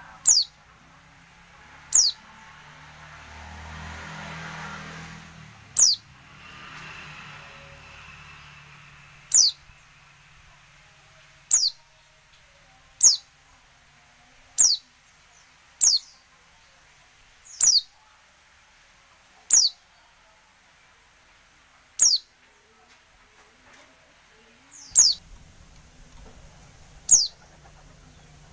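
Female white-eye (pleci) giving about a dozen single, thin, high call notes, each falling sharply in pitch, spaced irregularly one to three seconds apart. Keepers use this call to lure male white-eyes into calling and singing.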